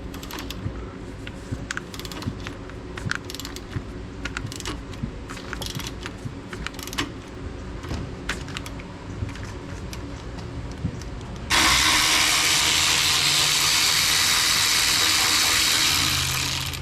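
Hand tool work with scattered metal clicks and ticks, like a ratchet wrench being worked on a fastener. About eleven and a half seconds in comes a sudden steady hiss, fitting an aerosol can of PB Blaster penetrating oil being sprayed onto a seized fastener. The hiss lasts about five seconds and fades out.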